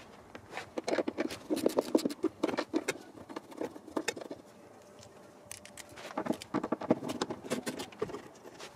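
Hand ratchet clicking in quick runs while undoing 10 mm plastic nuts on an underbody panel: one long run from about a second in, then a second run about six seconds in.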